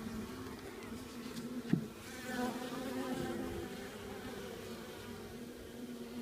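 Honeybee colony buzzing in a steady hum from the opened hive, with a brief soft knock nearly two seconds in.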